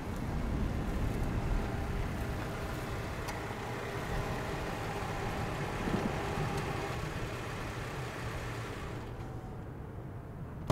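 Jeep Wrangler engine running as it rolls slowly up over grass and comes to a stop, a steady low rumble with a brief thump about six seconds in. The noise thins out near the end, and a sharp click comes right at the end.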